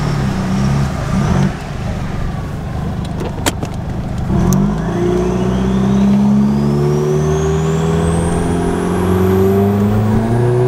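Turbocharged Toyota 1HZ inline-six diesel in a Landcruiser 105, heard from inside the cab, accelerating under load. After a gear change in the first few seconds, the engine note climbs steadily while a high turbo whistle rises higher and higher over it.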